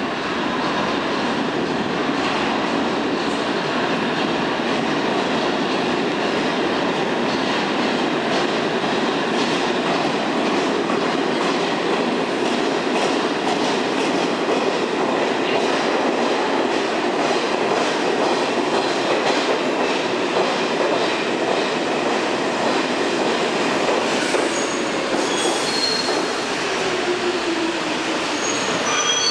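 R46 subway train pulling into an underground station, its wheels giving a steady loud rumble on the rails. Near the end, a falling whine comes as the train slows, with short high-pitched brake squeals.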